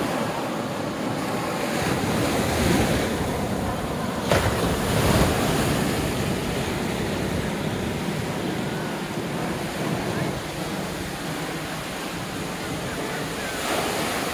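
Surf breaking and washing on the beach, with wind buffeting the microphone. The sound swells a few times, and there is a sharp knock about four seconds in.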